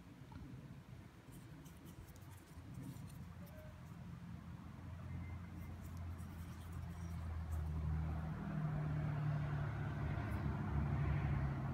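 A low engine hum, likely a motor vehicle, growing steadily louder as it comes closer, with a rushing sound building over it near the end.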